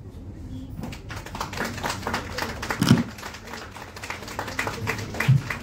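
An audience applauding, the clapping starting about a second in as a quick, uneven patter of many hands. Two short low thumps stand out, one near the middle and one near the end.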